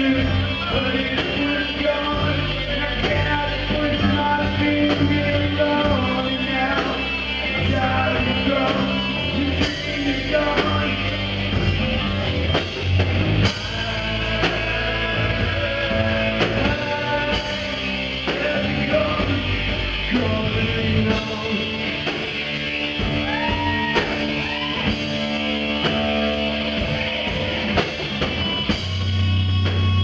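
Live rock band playing: distorted electric guitar, electric bass and a drum kit driving a steady beat, with a few sliding guitar notes about two-thirds of the way through.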